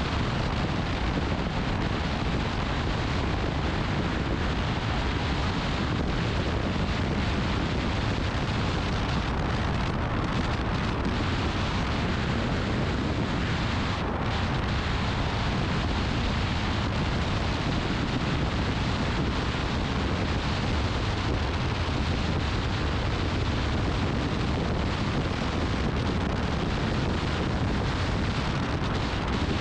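Steady wind rush buffeting the microphone of a camera on a moving motorcycle, a loud even rumble strongest at the low end.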